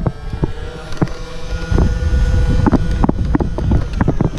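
Battery-powered Nerf blaster's flywheel motors whirring in a steady whine that stops about three seconds in, with a rapid run of sharp clicks and knocks of the blaster being fired and handled, and wind buffeting the microphone.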